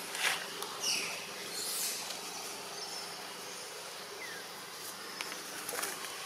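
Steady outdoor background hiss with a few brief high chirps in the first two seconds and a short falling chirp a little past the middle.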